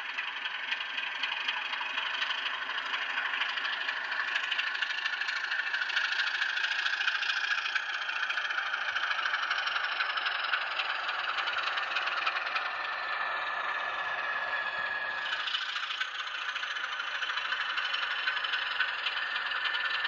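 Model railway diesel locomotive running along the layout track with its wagons: a steady mechanical rattle and running noise with a faint whine that slowly falls in pitch, changing in character about fifteen seconds in.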